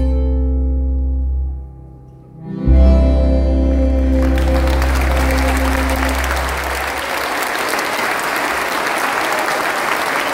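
A band of bandoneons, accordion, violin, acoustic guitar, electric bass and keyboard holds a chord that fades, then strikes a loud final chord whose low bass note rings on. Audience applause breaks out about four seconds in and takes over as the music dies away.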